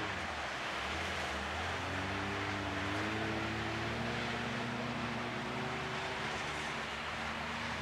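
Engines of several front-wheel-drive skid cars running on the track, their pitch rising slowly as they accelerate, over a steady hiss.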